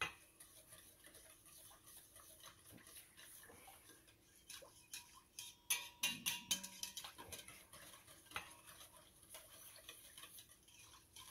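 Faint clicking and scraping of a wire whisk and spatula stirring a thin liquid mixture in a stainless steel mixing bowl, the taps coming thicker about halfway through.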